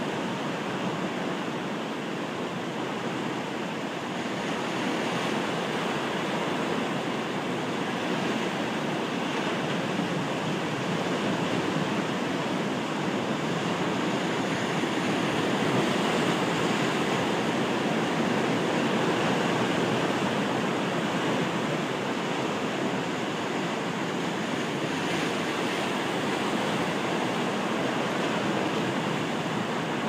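Atlantic surf breaking and washing over rocky shore ledges: a continuous rush of water that swells gently towards the middle and eases again.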